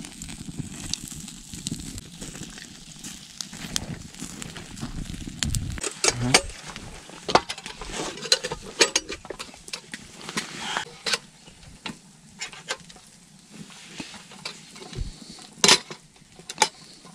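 Meat and vegetables sizzling on a wire grill over charcoal embers, then a run of sharp metal clicks and knocks as a red hurricane oil lantern is handled and lit, the loudest clicks near the end.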